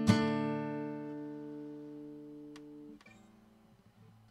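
Acoustic guitar chord strummed once and left to ring, fading for about three seconds until the strings are stopped, recorded close on a dynamic microphone with no EQ.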